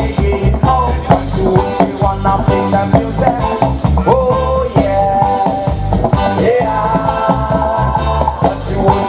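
A reggae record played loud over a sound system: a heavy, pulsing bass line under a sung vocal melody with long held notes.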